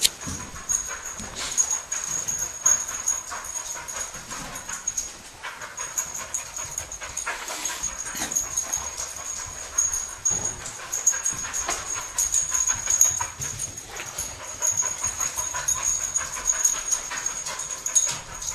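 English springer spaniel cadaver dog panting, with dense quick clicks and a thin steady high whine that drops out now and then.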